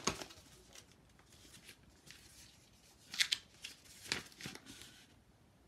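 Paper instruction sheet rustling and crinkling as it is handled and unfolded, in a few short bursts about three and four seconds in, after a sharp click at the start.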